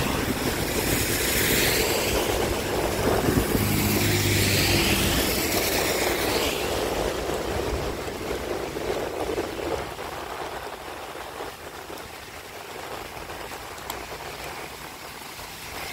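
Traffic on a rain-wet road: a steady hiss of tyres on wet asphalt, louder for the first six seconds or so, with a brief engine hum about four seconds in, then fading to a quieter hiss.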